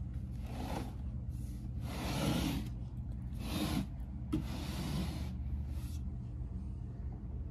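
Handling noise: about seven short rustling, rubbing bursts over a steady low hum.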